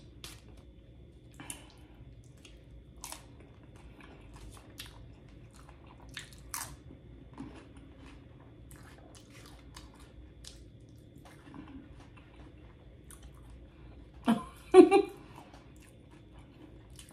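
Close-miked chewing of crunchy tortilla-chip nachos, with sharp crunches at irregular intervals. Near the end comes a brief vocal sound, louder than the chewing.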